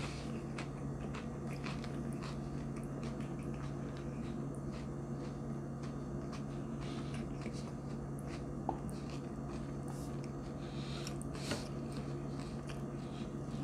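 A person chewing a mouthful with cracked peppercorns: irregular wet mouth clicks and small crunches, over a steady low hum.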